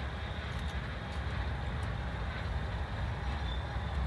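Steady low rumble of an approaching freight train led by GE Dash 9 diesel locomotives.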